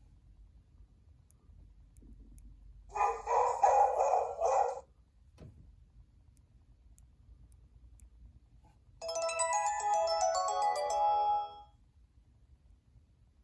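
Two short ringtones played through the small speaker of a Cingular 8525 Pocket PC. The first is a brief cluster of bell-like chimes a few seconds in; after a pause, the second is a quick melodic run of notes lasting under three seconds.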